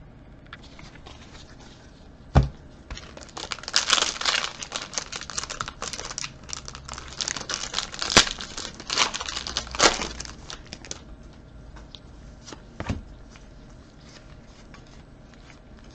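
A foil trading-card pack wrapper tearing and crinkling for several seconds as it is opened, with a sharp knock a couple of seconds in and a light tap near the end.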